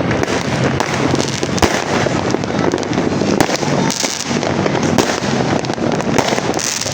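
New Year's fireworks going off in quick succession, a dense, continuous barrage of bangs, pops and crackles.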